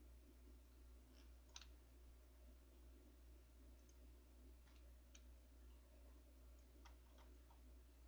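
Faint computer mouse clicks, about eight scattered single clicks, some in quick pairs, over a low steady hum.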